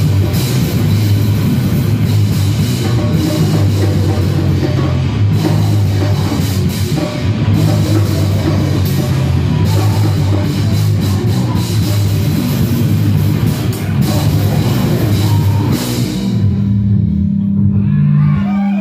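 Live band playing loud, heavy distorted rock on drum kit and electric guitars. About sixteen seconds in the drums stop and one low note is held on.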